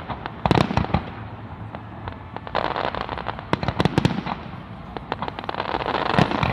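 Aerial fireworks display: salvos of shell bursts, sharp bangs in clusters about half a second in, again around three and a half to four seconds in, and just before the end, with crackling between the salvos.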